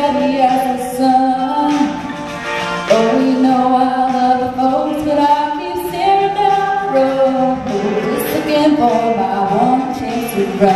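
A woman singing solo into a microphone, holding long notes and gliding between them.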